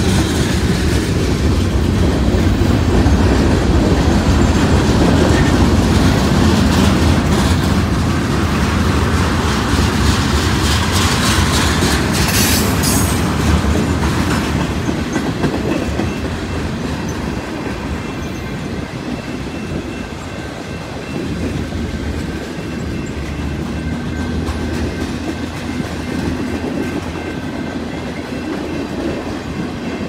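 Freight train cars (tank cars and bulkhead flatcars) rolling past close by: a steady heavy rumble of steel wheels on rail with clickety-clack over the rail joints, easing slightly about halfway through.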